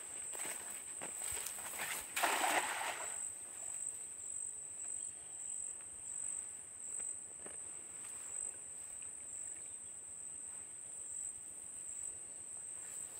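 A cast net lands on the water with a brief splash about two seconds in, the loudest sound here, after a few rustles and steps in the grass. A steady high-pitched insect drone runs underneath.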